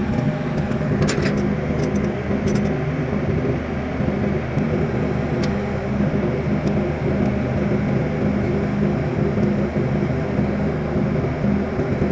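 Steady engine hum running throughout, with a few light metallic clicks of a hand wrench about one to three seconds in.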